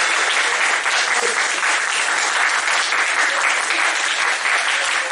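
A group of people applauding, steady and dense clapping throughout.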